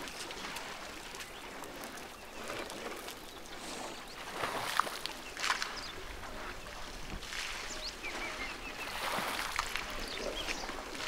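Water splashing and dribbling as African elephants drink at a waterhole, drawing water into their trunks and spilling it back. Irregular splashes come and go, the louder ones about four to five and a half seconds in.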